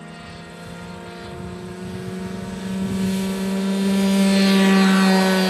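Radio-controlled model airplane's motor and propeller running steadily on its takeoff run across grass. It grows louder as the plane approaches and is loudest near the end as it passes close by.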